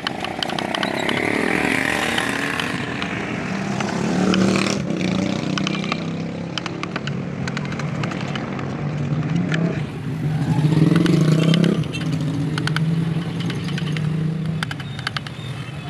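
A motor vehicle engine running nearby, its hum swelling about four seconds in and again around eleven seconds in. Light clicks and scrapes of a hand chisel cutting into wood are scattered through it.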